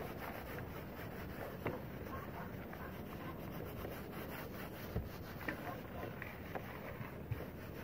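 Faint rubbing of a paper towel wiping a car's interior door panel, with light wind on the microphone and a soft knock about five seconds in.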